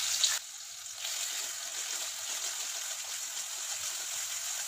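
Turmeric, salt and whole spices sizzling steadily in hot mustard oil in an aluminium kadai, stirred with a spatula. The sizzle drops away briefly about half a second in, then carries on.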